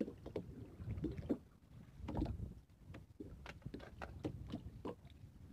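Small fishing boat at sea: a low rumble of water and wind around the hull, with scattered light knocks and clicks at irregular intervals as a fishing net is handled in the boat.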